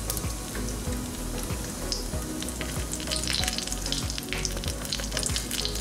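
Whole spices, cumin and fennel seeds among them, frying in hot oil in a stainless steel pan: a steady sizzle with many small, irregular crackles and pops.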